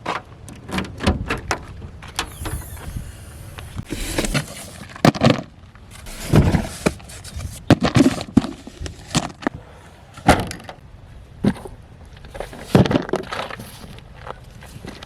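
Irregular clicks, knocks and light rustling of packaging and a small die-cast toy truck being handled, with a handful of louder knocks.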